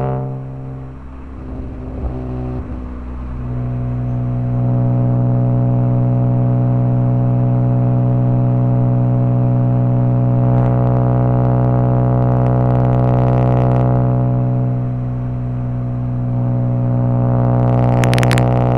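BMW E46 M3's 3.2-litre straight-six running through a Megan Racing exhaust while the car is driven. It is quieter for the first few seconds, then drones steadily at a constant engine speed, easing slightly about 15 seconds in.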